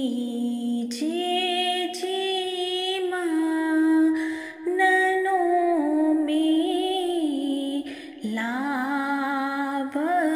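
A woman singing a ginan, an Ismaili devotional hymn, in long held notes that waver in pitch. She pauses briefly between phrases about four seconds in and again about eight seconds in.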